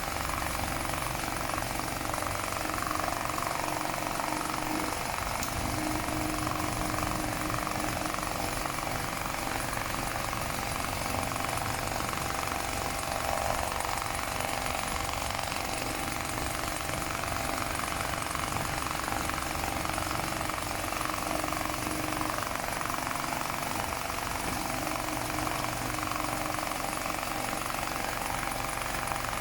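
BAS-342GXL CNC programmable pattern sewing machine stitching steadily, its needle mechanism hammering at a fast, even rate.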